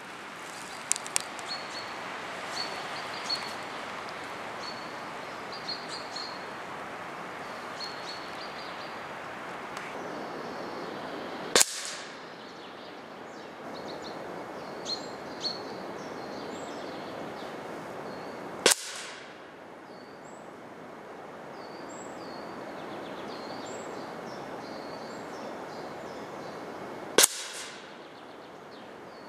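Three sharp shots from a Hatsan AT44-10 .22 PCP air rifle, about seven and then eight and a half seconds apart, picked up near the target. Small birds chirp throughout over a steady outdoor hiss.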